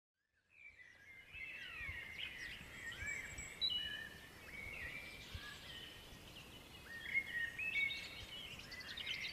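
Several songbirds singing at once, overlapping quick chirps and sliding whistled notes, over a light background hiss, fading in during the first second.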